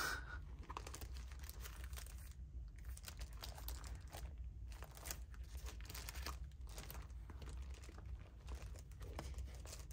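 Faint, irregular crinkling and rustling of packaging as a planner cover is handled.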